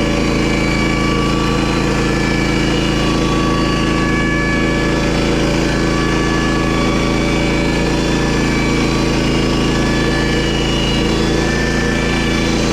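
Small gasoline engine of a homemade sawmill running steadily at constant speed.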